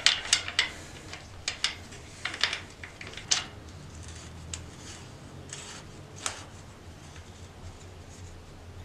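Light metal clicks and scrapes as a chain-adjuster block is fitted by hand onto a dirt bike's rear axle end in the swingarm: a quick cluster of clicks over the first few seconds, then one more a little past the middle, over a faint low hum.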